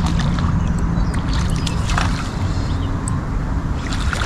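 A steady low engine drone, with scattered light clicks and taps over it.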